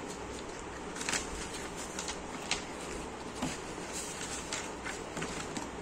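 Pages of a children's book being turned and handled: a few short paper rustles and crackles over steady room noise.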